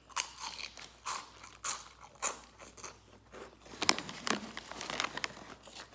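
Close-up biting and chewing of crunchy food: a string of sharp, irregular crunches, the loudest about four seconds in.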